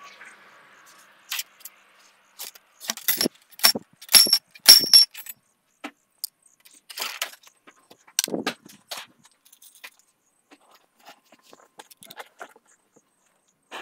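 Steel ramrod clinking and rattling against the barrel of an M1849 Kammerbuchse muzzleloading rifle during loading. A quick run of metallic clinks, some ringing brightly, is followed by a duller knock about eight seconds in and then a few light clicks.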